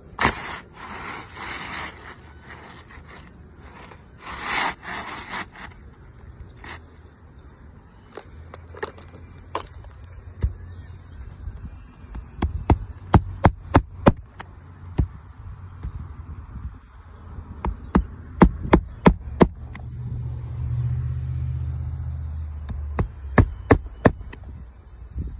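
Scraping and rustling of asphalt roof shingles being handled, then three quick runs of sharp hammer blows, five or six each, as a hammer drives nails under a lifted shingle tab.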